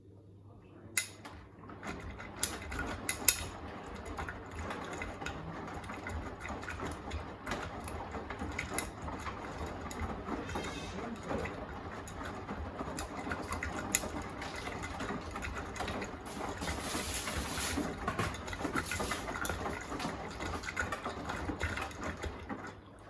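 Beko WTK104121A washing machine drum turning mid-wash: a steady motor hum under the tumbling load, with scattered clicks. It starts about a second in and stops near the end.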